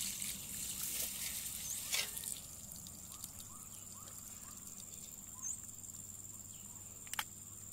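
Water pouring from the cut end of a black polyethylene water pipe and splashing onto wet ground. It tapers off about two seconds in as the pipe finishes draining.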